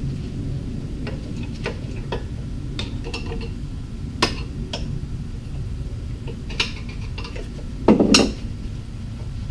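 Scattered light metallic clinks and taps of hand and tools working a lawn mower carburetor loose from the engine block, with one heavier knock about eight seconds in, over a steady low background hum.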